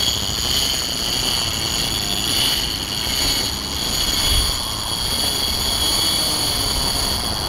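Heavy conventional fishing reel's clicker buzzing steadily as a bull shark pulls line off the free-spooled reel while it takes the bait. Wind and a low rumble lie underneath.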